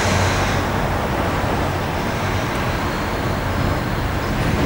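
Steady outdoor background rushing noise with a low hum underneath; a brighter hiss fades out about half a second in.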